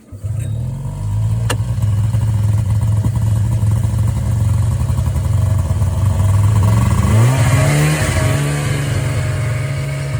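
Arctic Cat Puma snowmobile's fan-cooled two-stroke engine starting up and running at idle, with a brief rise in revs about seven seconds in.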